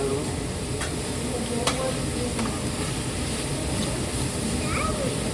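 Food sizzling steadily on a hot hibachi flat-top griddle, with a few sharp clicks in the first half.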